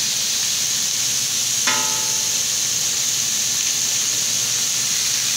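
Beef steaks and zucchini slices sizzling on a hot ridged grill plate, a steady frying hiss. About a second and a half in, a single sharp ringing note sounds and fades within half a second.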